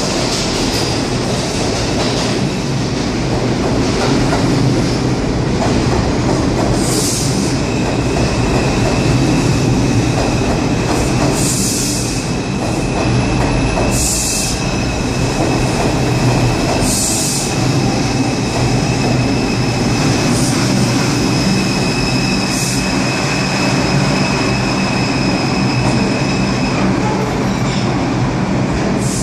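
R142 subway train pulling out along an underground station platform: a steady rumble of wheels on the rails under two long high steady tones, with short high hisses every few seconds.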